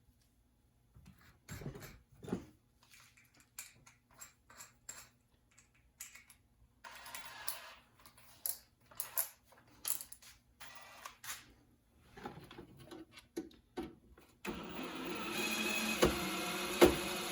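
Small parts and tools clicking and knocking, then a power drill fitted with a screwdriver bit running steadily for about three seconds near the end, driving a screw.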